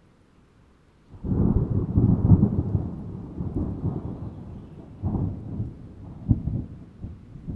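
Thunder: after about a second of near silence, a low rumble breaks in suddenly, peaks and rolls on. Fresh surges of rumbling follow about five seconds in, and a sharp clap comes near the end.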